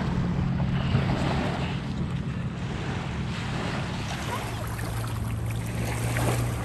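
A steady low motor hum that grows a little stronger about four seconds in, with wind noise on the microphone.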